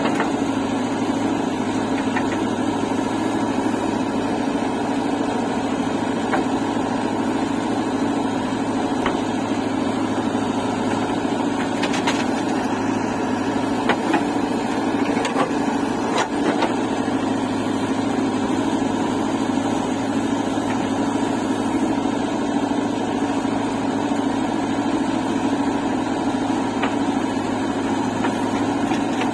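JCB 3DX backhoe loader's diesel engine running steadily while the backhoe digs soil and loads it into a trolley, with a few brief knocks around the middle.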